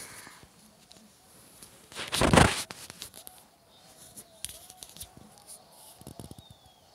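Handling noise from a phone being moved while it records: scattered clicks and rustles, with one loud scraping rub lasting under a second about two seconds in.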